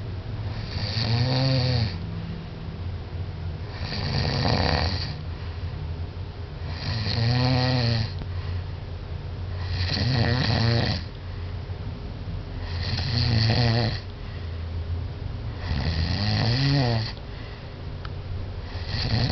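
A man snoring heavily through an open mouth while asleep: a loud, rasping snore on each in-breath about every three seconds, with quieter breathing between them.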